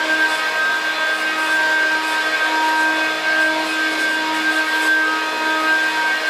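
Circa-1972 Hoover Dial-A-Matic 1140 upright vacuum cleaner (the non-Power Drive model) running steadily. Its motor's rushing air carries a few steady whining tones that waver slightly in strength.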